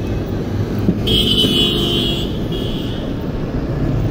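Road traffic passing close by, engines rumbling steadily, with a high-pitched vehicle horn sounding about a second in for over a second, then a shorter, fainter toot.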